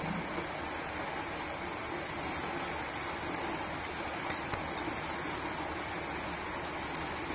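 A few light metallic clinks of a steel spoon against a nonstick kadhai as cubes of paneer are lowered into the oil: a quick cluster about four seconds in and one more near the end, over a steady hiss.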